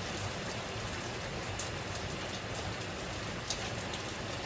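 Heavy rain pouring down, a steady even hiss, with two faint ticks, one about a second and a half in and one near the end.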